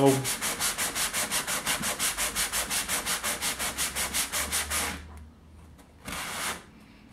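Sanding block rubbed quickly back and forth over dried joint compound along a model railway rail, about five strokes a second, stopping about five seconds in. A short scuff follows a second later.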